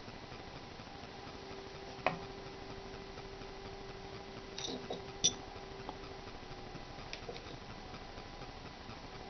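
Quiet handling of a small carved wooden piece: a few light clicks and taps, the sharpest about two seconds in and about five seconds in, over a faint steady hum that comes in after about a second and stops near seven seconds.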